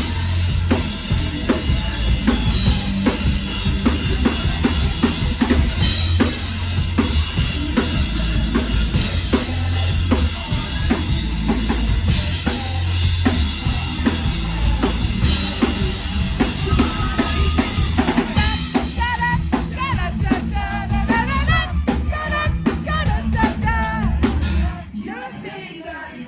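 Live band playing on a club stage: a full drum kit and bass drive the song, and a wavering melody line rides over the top from about two-thirds of the way through. Shortly before the end the kick drum and bass drop out, leaving a thinner passage.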